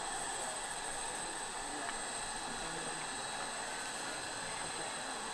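Steady hissing noise with a thin high tone above it.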